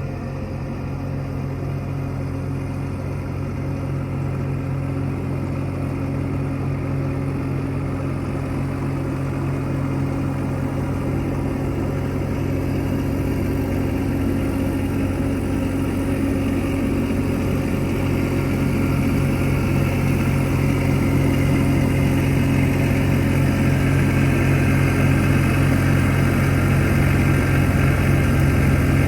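Skid steer engine running steadily, growing slowly louder.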